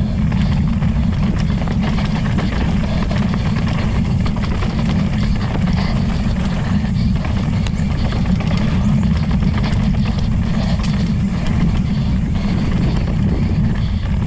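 Wind buffeting the microphone of a camera on a mountain bike riding fast down a dirt singletrack: a steady low rumble, with tyre noise and small scattered rattles and knocks from the bike over the rough trail.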